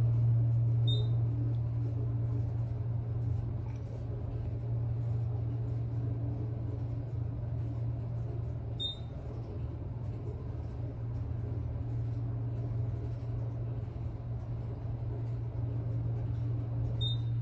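Hydraulic elevator car descending, heard inside the cab as a steady low hum with a faint rumble. Three short high beeps come about eight seconds apart as the car passes floors.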